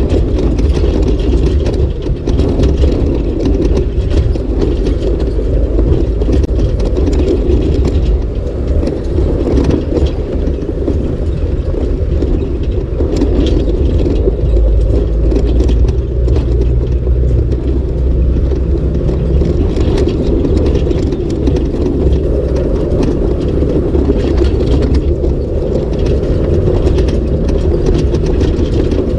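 Vehicle driving a rough gravel dirt trail, heard from inside the cabin: a steady low rumble of engine and tyres on gravel, with frequent clicks and rattles as it bounces over the surface.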